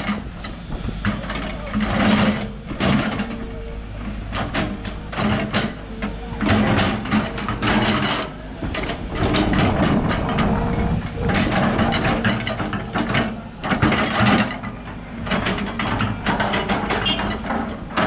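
Backhoe's diesel engine running steadily, with irregular knocks and clanks of metal over it.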